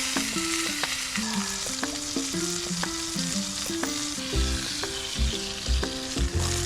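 Steak sizzling over a campfire, a steady frying hiss. Background music with a melody plays over it, and a low beat comes in about four seconds in.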